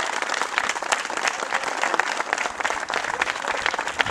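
A small audience applauding, many hands clapping in a steady patter.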